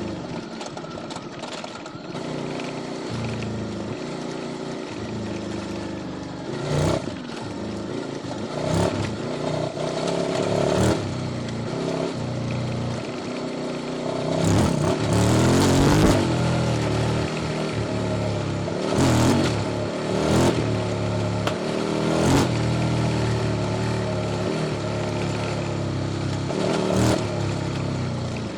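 QJ Motors SVT650X 645 cc V-twin running through an Arrow Racetech exhaust with custom headers while being ridden, revs rising and falling repeatedly. Several short, sharp bursts of noise cut in over the engine note.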